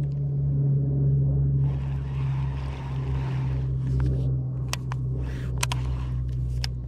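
A steady low motor hum, with a few sharp clicks in the second half.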